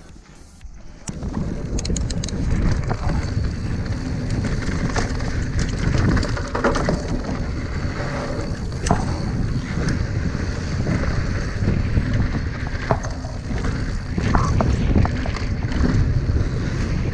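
Mountain bike riding down a rough, loose dirt trail: tyres rumbling over the ground with scattered clicks and knocks from the bike, and wind on the microphone. The rumbling starts about a second in.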